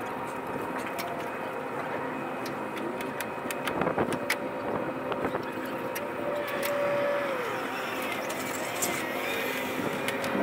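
A vehicle engine running steadily with a constant hum, a short drop in pitch around the middle, and scattered sharp clicks over it.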